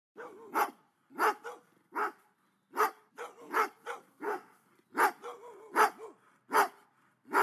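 Dog-barking sound effect: a series of short, sharp barks, about one every three-quarters of a second.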